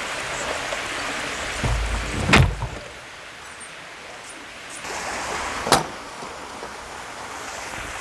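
Steady background hiss, with a brief low rumble and a sharp knock about two and a half seconds in, then a second sharp knock about three seconds later.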